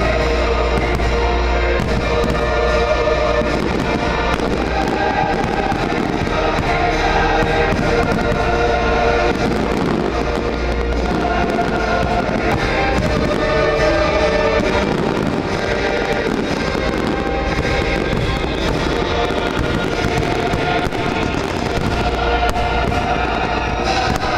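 Aerial fireworks bursting and crackling in quick, continuous succession, with the fireworks show's music playing loudly underneath.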